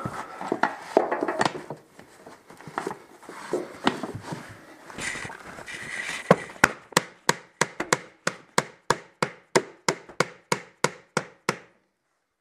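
Mallet knocking laminate floor planks to drive their snap-together joint closed: a few scattered knocks and handling noise at first, then, about six seconds in, a quick, even run of about twenty sharp blows, about four a second, stopping shortly before the end.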